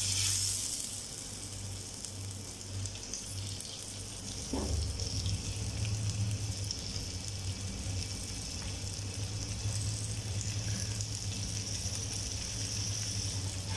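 Cooked chicken pieces sizzling in oil on a hot dosa tawa (flat griddle) over a low flame: a steady frying hiss.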